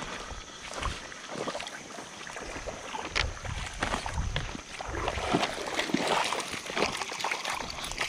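Creek water splashing and sloshing in irregular bursts as a hooked small wild brown trout is played and the angler wades in to land it.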